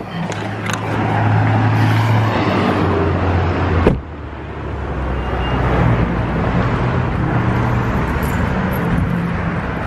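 Car engine running with steady road-side rumble, and a car door shutting with a single sharp thud about four seconds in.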